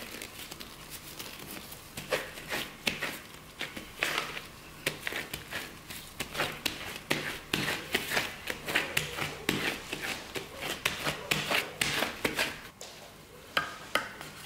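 Gloved hands kneading and pressing a large ball of kkwabaegi yeast dough flat on an aluminium tray: quick, irregular squishing, slapping and rubbing, with the crinkle of disposable gloves. It quietens to a few soft touches for the last couple of seconds.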